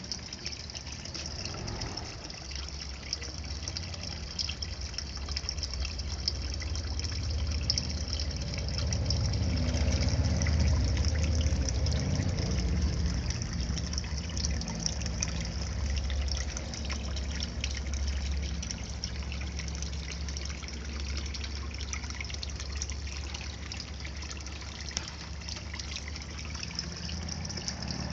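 Water trickling and splashing steadily into a small garden fish pond, with a low rumble underneath that swells around the middle.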